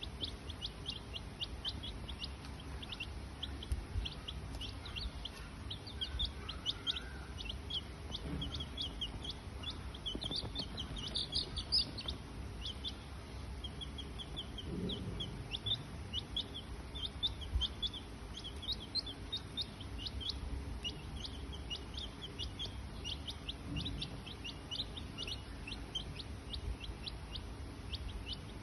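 Rapid, high-pitched bird-like chirping, many short chirps a second with a louder flurry about eleven seconds in, over a low rumble.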